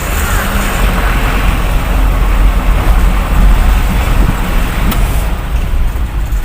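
Isuzu 4HL1 four-cylinder diesel truck engine pulling under sudden acceleration, heard from inside the cab with road noise. It runs on without stalling, the test for its stalling fault, which has been cured.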